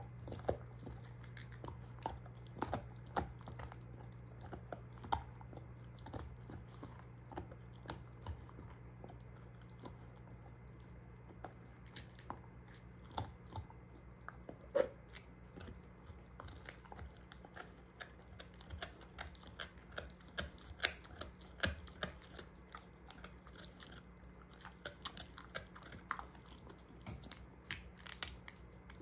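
German shorthaired pointer gnawing and chewing a beef soup bone, with irregular wet crunches and sharp clicks of teeth on bone, a few of them louder.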